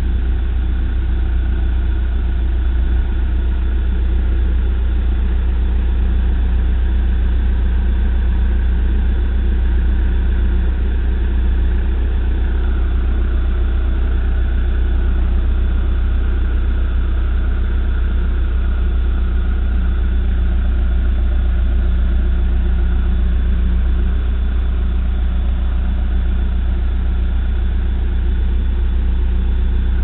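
Backhoe loader's diesel engine running steadily at low revs while the machine carries a load slung from its front bucket.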